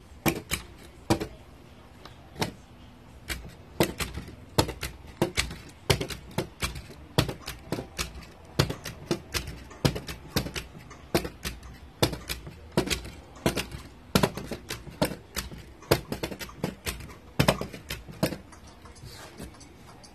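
1/25-scale 1975 Cutlass model car being test-hopped: its hop mechanism and wheels clack and knock against the tabletop in quick, irregular strikes, a couple a second.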